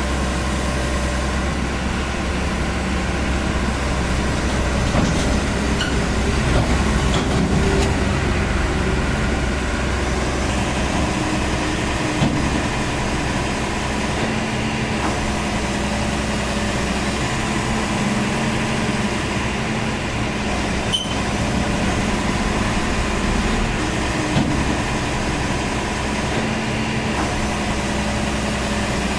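JCB 215 LC tracked excavator's diesel engine running steadily while its upper structure swings round and the boom and bucket move, the engine note shifting a few times. A few short knocks are heard.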